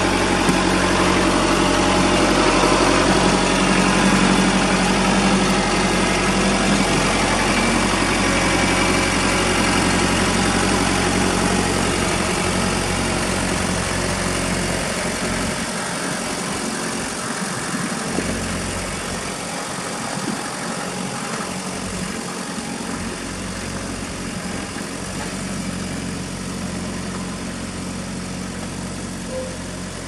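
Kubota compact tractor's diesel engine running steadily as the tractor moves close by and then pulls away, growing gradually quieter through the second half.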